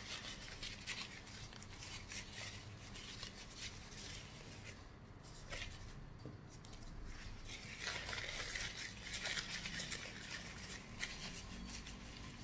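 Paper towel rustling and scrunching as it is folded and rubbed over a disassembled plastic vape pod to wipe it clean.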